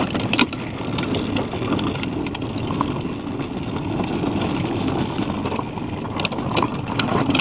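Hard plastic wheels of a ride-on toy car rumbling steadily over rough pavement, with scattered clicks and knocks from the plastic body.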